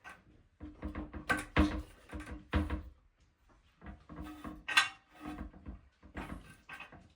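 Irregular knocks and clicks of toilet-tank hardware, a bolt and its rubber gasket, being handled and fitted against the tank, with a low ringing tone under some of the knocks.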